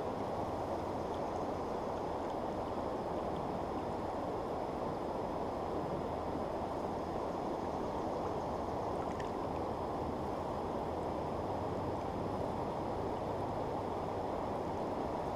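Steady rush of a shallow river's current flowing over rocks, heard as an even, muffled low noise with no breaks.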